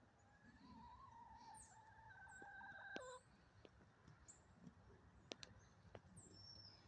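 A rooster crowing once, faint and distant: one call of about three seconds that ends abruptly. High, short chirps of small birds are heard as well.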